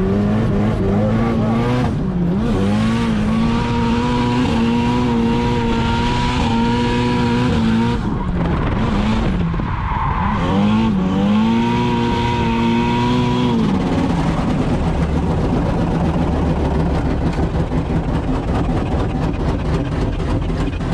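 Turbocharged SR20DET 2.0-litre four-cylinder engine held high in the revs through a drift, with the tyres squealing. The engine pitch dips and climbs back about two seconds in and again around nine seconds in. About two-thirds of the way through it drops to a lower, steadier running note as the slide ends.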